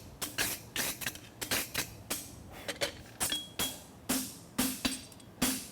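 Farrier's hammer striking a hot steel horseshoe on an anvil in quick, even blows, about three a second, each with a short metallic ring: the branches of a quarter horse hind shoe being forged out.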